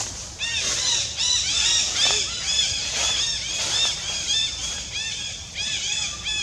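Baby long-tailed macaque screaming, short high-pitched arched squeals in quick succession, the typical protest of an infant being weaned.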